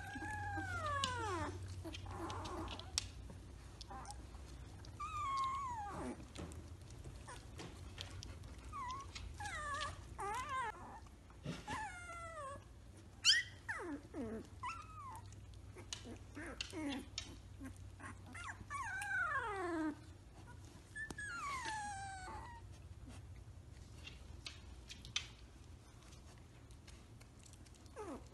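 Three-week-old Samoyed puppies whimpering and squealing: short high cries that fall in pitch, coming in scattered clusters, the loudest a sharp cry about halfway through.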